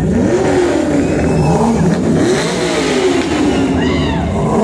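A motor vehicle engine revving up and down several times, its pitch rising and falling with each rev.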